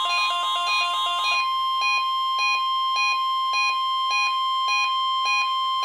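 NOAA Weather Radio warning alarm: a steady 1050 Hz tone held throughout, with a second electronic alert pattern laid over it. For the first second and a half that pattern is a rapid stepping trill of several tones, then it becomes regular beeps about twice a second.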